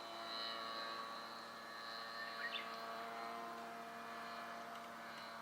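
Radio-controlled aerobatic model airplane flying, its motor and propeller giving a steady droning hum. A short chirp sounds about halfway through.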